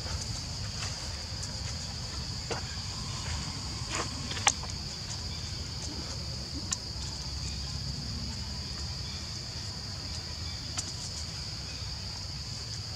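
Steady high-pitched drone of insects over a low rumble, with a few scattered sharp clicks, the loudest about four and a half seconds in.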